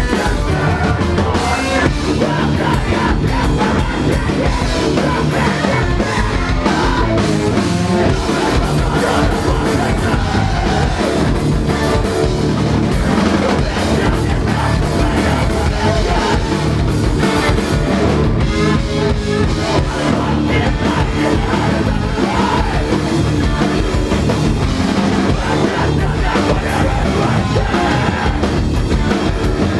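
Rock band playing live at a loud, steady level, with a drum kit driving the music.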